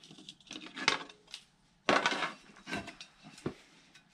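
Clinks and clunks of metal parts handled on a workbench as a Volkswagen Beetle brake drum is taken off its drilling template and lifted, with a louder clatter about two seconds in.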